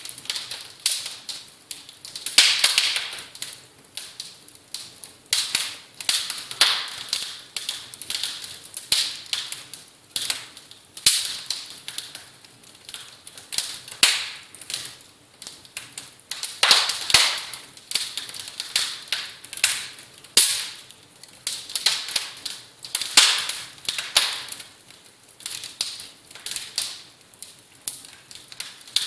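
Many small, sharp clicks and taps in an irregular stream, coming in clusters that swell and fade every second or so.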